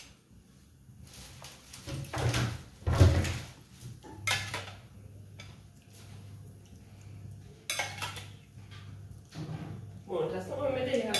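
A metal serving spoon clinking and scraping against a ceramic bowl and an aluminium foil pan as sauce is spooned over meat: a few scattered sharp knocks, the loudest about three seconds in.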